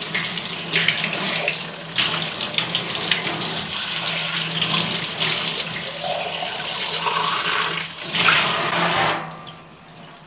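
Tap water from a sprayer faucet pouring and splashing into a stainless steel utility sink as a plucked, gutted chicken is rinsed out under the stream. The water shuts off about nine seconds in.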